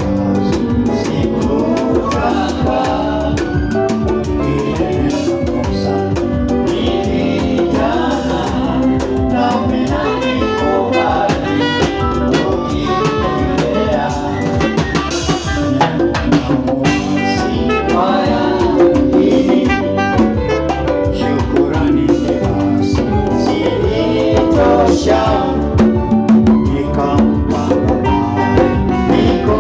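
Live band music from a drum kit with cymbals and an electric bass, with voices singing into microphones.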